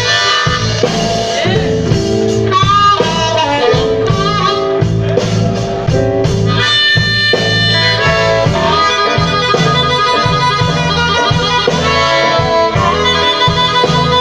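Blues band playing live, with a harmonica taking the lead over a steady bass line, bending and holding notes.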